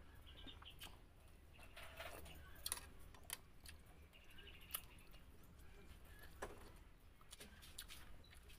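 Faint eating sounds: quiet chewing with a few scattered light clicks of utensils against a plate or bowl.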